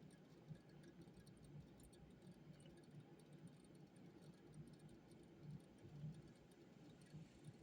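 Near silence: faint room tone with a low hum and faint scattered ticks.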